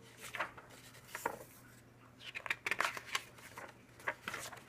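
Pages of an oversized hardcover comic book being turned by hand: a few short papery rustles and flicks, busiest about two to three seconds in.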